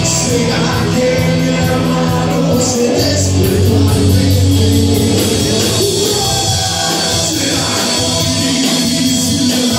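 Live rock band playing: electric guitars, electric bass and a drum kit with steadily ticking cymbals, under a male singer singing into a microphone.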